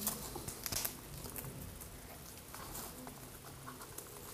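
Faint rustling and light taps of a fabric dust cover being handled and fitted over an RC truck's chassis, with a few sharper clicks a little under a second in.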